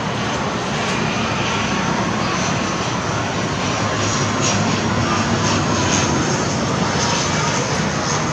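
Boeing 777-300ER's twin GE90-115B turbofan engines running steadily as the airliner taxis.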